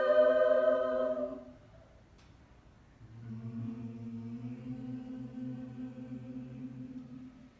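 Mixed a cappella vocal ensemble singing a loud held chord that releases about a second and a half in. After a short pause, the voices come back with a softer, lower sustained chord.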